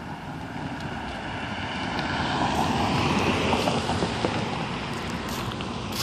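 A vehicle passing on the road: tyre and engine noise swells to its loudest about halfway through, then fades.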